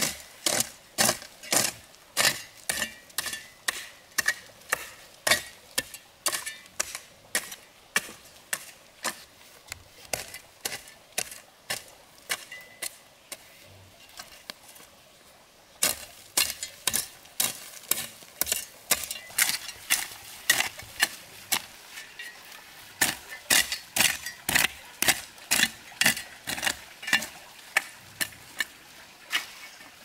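Repeated sharp chopping strikes, about two a second, with a pause of about two seconds in the middle before they pick up again.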